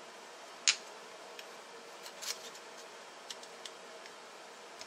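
Metal clicks and clinks as a band-type piston ring compressor is handled and fitted around a piston and its rings: one sharp click under a second in, then a few lighter clinks and ticks.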